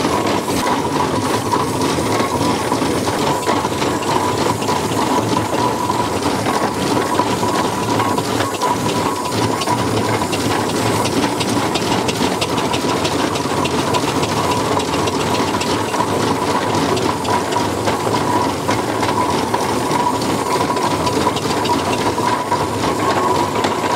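1912 Marshall steam traction engine running under way. Its steam exhaust hisses and puffs over the clatter of its working parts, with a steady high whine.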